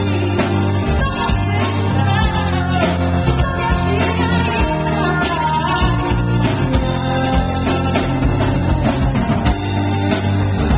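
Live band performing a song: a woman singing lead over strummed acoustic guitar, drums and keyboard.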